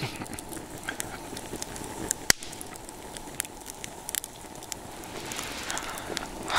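Wood campfire burning, crackling with scattered sharp pops, the loudest about two seconds in.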